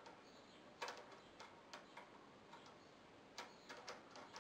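Faint, irregular light metallic clicks and ticks as fingers work at the throttle and governor linkage spring on a Honda GX160 carburetor, trying to unhook it by hand.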